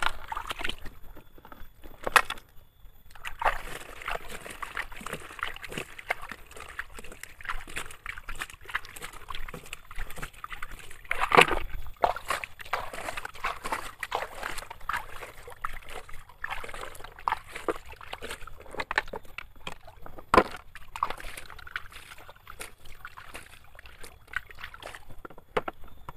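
Water sloshing and splashing irregularly as a toy sand dump truck is washed, with a few louder splashes along the way.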